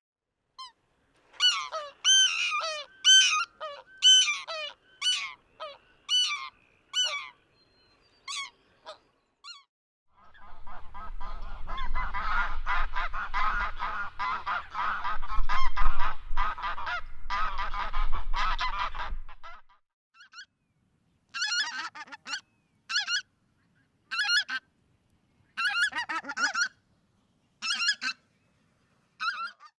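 Geese calling, three species in turn. First a greater white-fronted goose gives repeated short calls, then a flock of greylag geese honks together in a dense chorus over a low rumble, and last a pink-footed goose calls about once a second.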